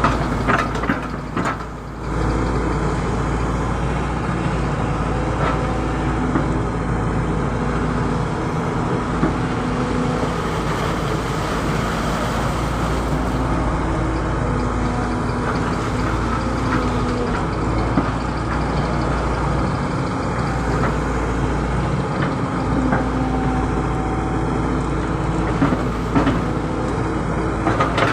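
Hydraulic excavator running steadily while digging out a ditch, its engine hum continuous, with a few short knocks and clicks scattered through.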